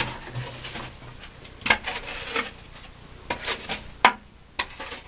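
Irregular short scraping and clattering strokes of a miner digging wet gravel by hand at the bottom of a narrow mining pit.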